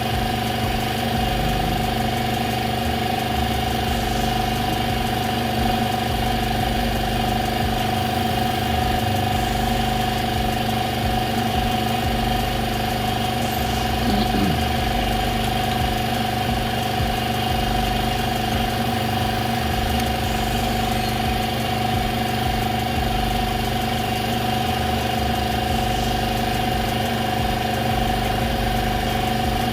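A steady mechanical hum from a running motor or engine, holding one pitch throughout.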